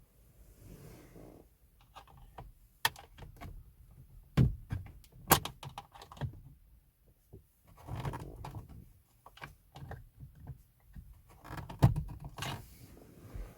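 Irregular clicks, knocks and rustling from hands handling tools and small parts, with a few sharper knocks about four and a half, five and a half and twelve seconds in.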